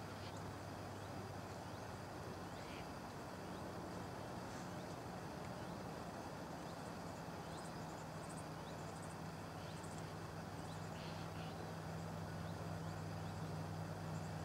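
Steady outdoor background noise: an even hiss with a low steady hum, and faint short high chirps scattered through.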